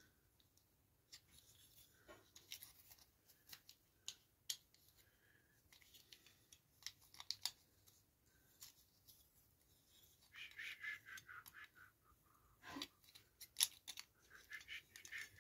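Quiet clicks, taps and light scrapes of small model-truck parts being handled and tried into place by hand, with a quick run of small clicks about ten seconds in and a sharper click near the end.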